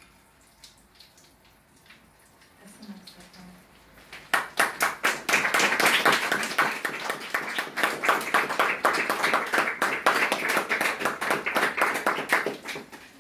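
Popping candy crackling: a dense, rapid run of sharp pops that sets in about four seconds in and thins out near the end. Before it come only a few faint clicks and a short low blip.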